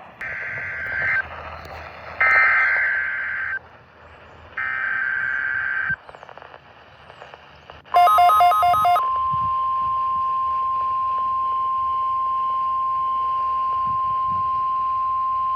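NOAA Weather Radio test broadcast: three screechy bursts of the SAME digital header tones in the first six seconds, then a brief pulsing beep and the steady single-pitch 1050 Hz warning alarm tone, held to the end over faint radio hiss.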